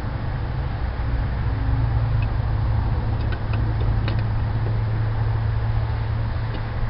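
Car on the move: a steady low rumble of engine and road noise, with a few faint ticks near the middle.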